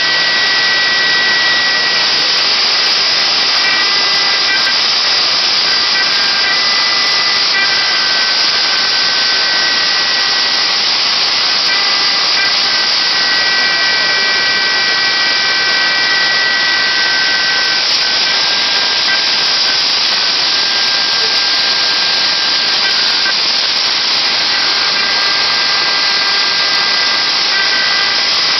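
A CNC router's spindle running while its thin bit carves a wooden fishing-lure blank: a steady, loud cutting hiss, with high whining tones that come and go.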